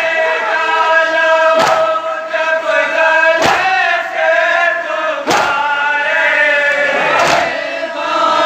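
A group of men chanting a Shia mourning lament (nauha) in long held notes, with loud chest-beating (matam) slaps struck in unison about every two seconds.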